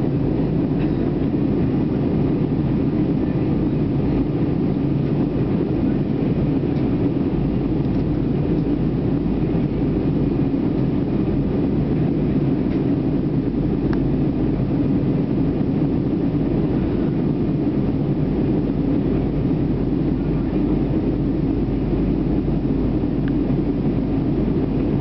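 Steady cabin noise of an Airbus A319 in flight, heard inside the cabin: the constant low rush of the engines and airflow, with no change in pitch or level.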